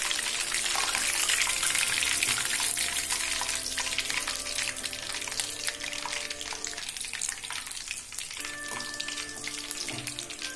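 Hot oil sizzling and crackling around breaded prawns deep-frying in a kadai. The sizzle eases off gradually as cooked pieces are lifted out with a slotted spoon.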